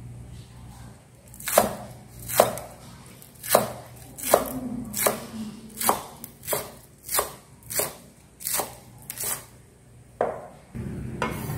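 Cleaver-style kitchen knife chopping green onions on a wooden cutting board: about a dozen separate chops at an uneven one to two a second.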